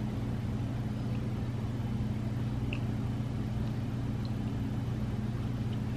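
A steady low electrical hum with even background noise, unchanging throughout.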